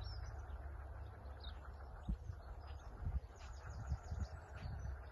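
Wind rumbling on the microphone, with a few gusty thumps about two, three and four seconds in, while small birds chirp.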